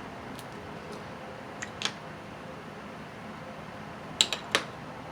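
Snow crab shell being cracked and snapped apart by hand: a few sharp cracks, a pair a little under two seconds in and a quick cluster of three about four seconds in, over a steady low hiss.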